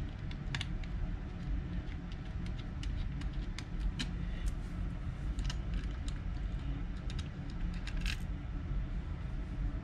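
Small metal and plastic CPU-cooler mounting parts clicking and tapping against a motherboard as they are handled and fitted around the socket, with a cluster of clicks near the end. A steady low hum runs underneath.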